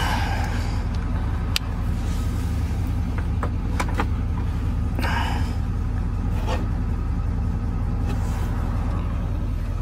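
A 2005 GMC 2500HD's Vortec gasoline V8 idling steadily, heard from inside the cab. A few light clicks sound over the idle.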